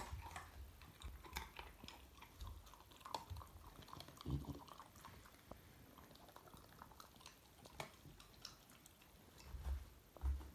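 A puppy chewing dog food, with scattered sharp clicks and soft low thumps.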